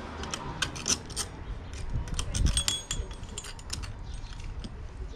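Small metal clinks and taps of U-bolt clamps, washers and nuts being handled and threaded on by hand as a stabilizer bar is clamped to a kayak seat frame. A few of the clinks ring briefly, about two and a half seconds in.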